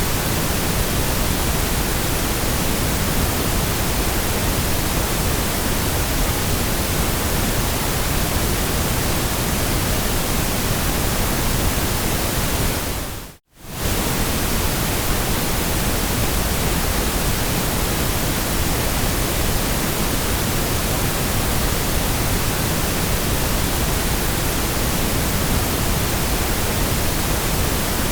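Steady white noise: an even, full-range hiss. About halfway through it dips briefly to near silence and comes straight back.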